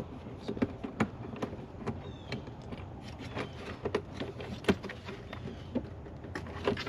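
Irregular clicks and knocks of a 10 mm socket wrench and loose metal parts being handled while bolts are loosened on the engine covers.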